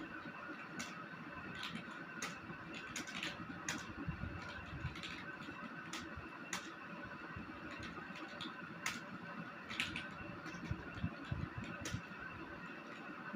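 Computer keyboard keys clicking in an irregular typing rhythm, a few keystrokes a second, over a steady background hum.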